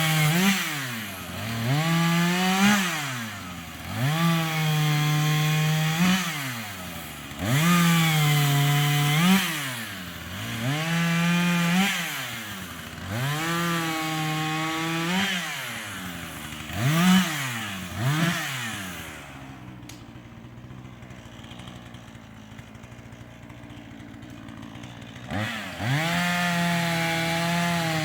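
Husqvarna 440e two-stroke chainsaw revving again and again, holding at high speed for a second or two at a time while cutting wood and dropping back between cuts. Near the end it idles for several seconds, then revs up again.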